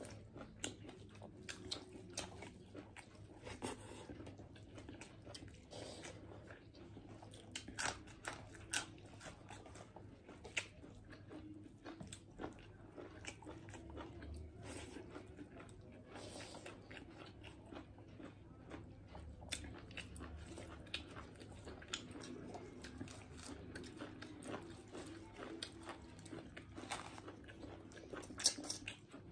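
Close-up chewing and biting as two people eat rice and mutton curry with their hands, with many short, sharp crunches and mouth clicks scattered throughout. One louder crunch comes near the end.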